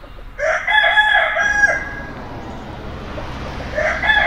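A rooster crowing twice, each crow about a second and a half long; the second crow starts near the end.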